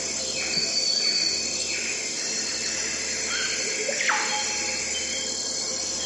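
Dawn nature soundscape: birds calling and chirping, with one call sweeping sharply down in pitch about four seconds in, over steady insect chirring and a soft sustained tonal melody.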